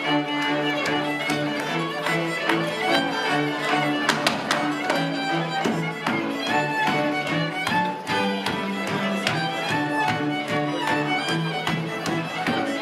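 Polish highlander (góral) string band, fiddles over a bowed bass line, playing a lively dance tune. Sharp knocks from dancers' shoes on the wooden floor sound through the music.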